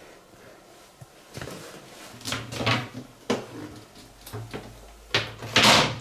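Bathroom door and fittings being handled: a string of short scrapes and knocks, with the loudest a longer scrape about a second before the end.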